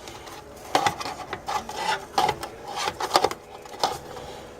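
Clicks, knocks and scraping of a light being handled and moved into a better position, with several sharp clicks scattered through the handling.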